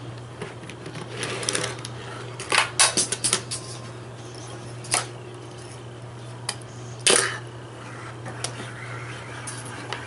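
Plastic magnetic building tiles clacking against each other and on a tabletop as a toddler handles them: scattered sharp clicks, a quick run of several about three seconds in and the loudest clack about seven seconds in.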